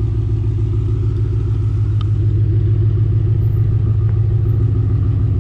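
Ford 4.6L three-valve V8 of a Mustang GT running steadily at low revs, a low exhaust rumble with even pulses through long-tube headers, an X-pipe and a Borla axle-back.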